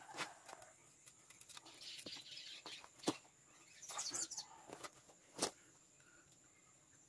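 White rope being pulled and knotted around green bamboo poles: faint rubbing and handling noise with scattered light clicks and two sharper knocks, one about three seconds in and one a little after five. A short, wavering high chirp sounds about four seconds in.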